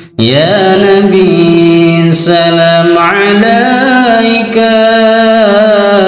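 Solo voice chanting a slow devotional melody in long, drawn-out notes that rise and fall gradually, picking up again after a brief pause at the start.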